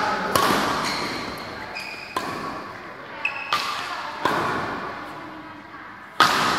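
Badminton rackets hitting a shuttlecock back and forth in a doubles rally. Five sharp smacks come about every one to two seconds, each ringing on briefly in the large hall.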